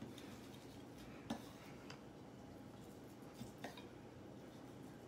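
Quiet room tone with a few faint clicks of a chef's knife blade against a wooden cutting board while slicing raw beef. The sharpest click comes about a second in.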